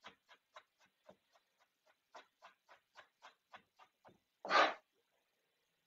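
Chef's knife mincing onion on a plastic cutting board: a run of light, quick taps, about four a second. About four and a half seconds in there is one brief, louder sound.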